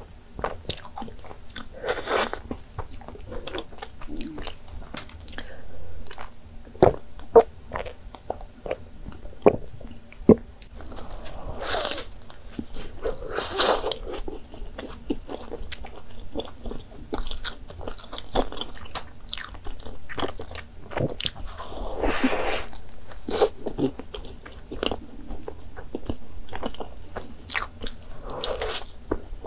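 Chewing and mouth sounds of someone eating a large custard-cream-filled doughnut: many small wet clicks and smacks, with a few longer, louder stretches of eating noise scattered through.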